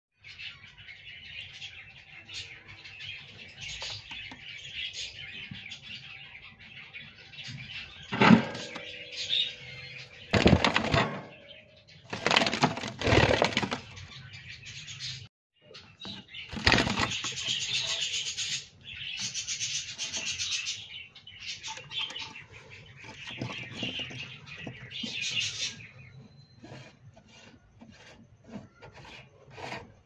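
Hagoromo budgerigars chattering and warbling steadily, with several louder rustling bursts in the middle. Near the end the chatter stops, leaving light scratchy clicks.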